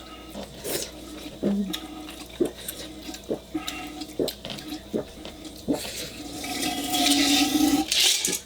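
A person gulping down an iced drink, swallowing about once a second, with a longer rushing sound of liquid near the end.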